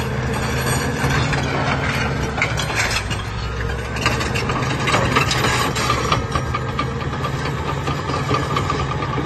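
Caterpillar D6R crawler dozer working through broken rock: its diesel engine running steadily under load while the steel tracks clank and rocks scrape and knock against the blade. A steady high whine comes in about halfway through.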